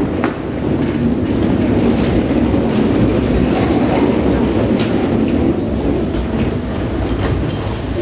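Set pieces rolled across the stage floor during a blackout scene change: a steady low rumble of wheels with scattered knocks and clicks.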